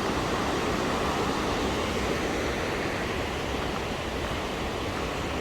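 Steady rushing of water from a waterfall and the creek below it, an even roar with no breaks.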